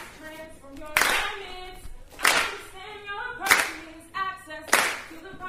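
Voices singing a melody over a steady rhythm of sharp hand claps, one clap about every second and a quarter.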